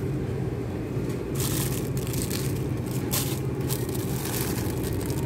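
Several short bursts of crinkling, rustling handling noise over a steady low hum.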